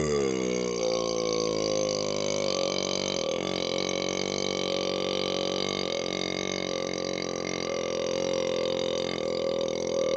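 A man's single, very long belch brought on by chugging carbonated root beer. It starts abruptly, drops in pitch over the first second, then holds at a steady low pitch without a break.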